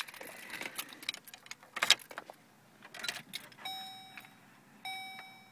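Car keys jangling and clicking as the key goes into the 2002 Chevrolet Cavalier's ignition. Then, with the ignition switched on, the dashboard warning chime sounds, a steady electronic tone that breaks once and starts again near the end.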